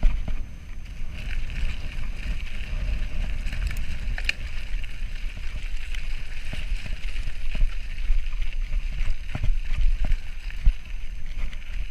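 Mountain bike rolling along a gravel track, with wind buffeting the camera's microphone in a steady low rumble and a few short knocks and rattles from bumps along the way.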